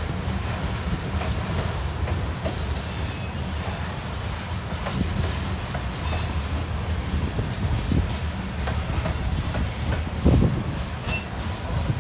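Freight train's covered hopper cars rolling past: a steady rumble of steel wheels on the rails with clicking and clacking, and one louder thump about ten seconds in.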